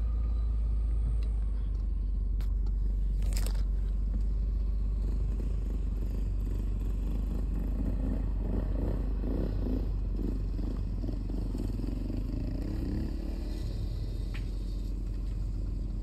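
A car driving along a road, its engine and tyre noise making a steady low rumble, with a short clatter about three seconds in and a wavering pitched sound for several seconds past the halfway point.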